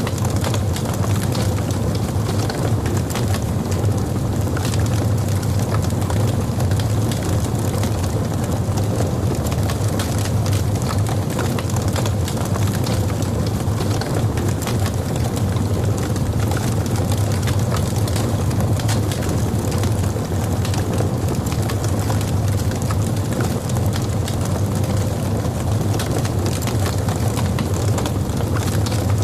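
Logs burning in a fireplace, crackling with many small snaps and pops over a steady low rumble.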